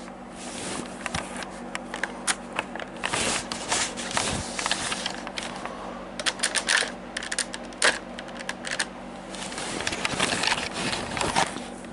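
Irregular plastic clicks and scrapes of a Klingon Bird of Prey model toy being handled, its movable wings being shifted, over a steady low hum.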